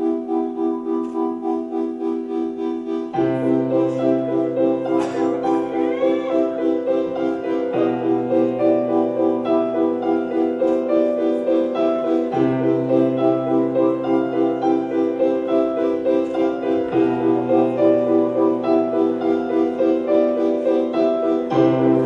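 Instrumental music built on fast, evenly repeated piano chords; a low bass note comes in about three seconds in and shifts every few seconds.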